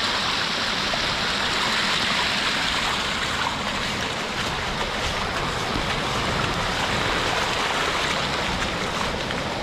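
Rainwater runoff from a heavy downpour rushing in a steady torrent, sounding like a waterfall.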